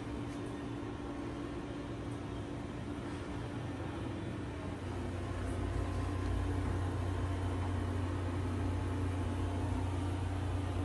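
Steady mechanical hum with a low rumble that grows louder about five seconds in.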